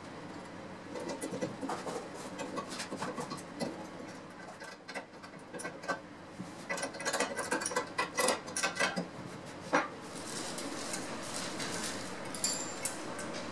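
Small metal clicks, clinks and taps of hand work on a band saw's fence rail, a round steel tube bolted to the edge of the metal saw table, busiest about a second to ten seconds in. A steadier rustling noise with only a few light clicks follows.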